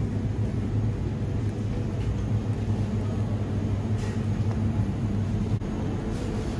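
Steady low hum and rumble of supermarket chest freezers running, with a few faint soft knocks.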